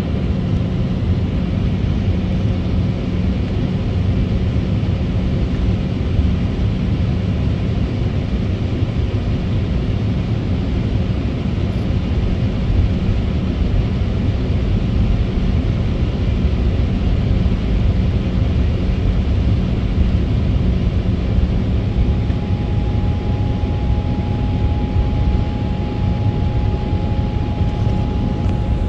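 Cabin noise of an Embraer E190 jet at taxi power: its GE CF34-10E turbofans at idle give a steady low rumble with a faint hum. A thin, steady higher tone joins about two-thirds of the way in.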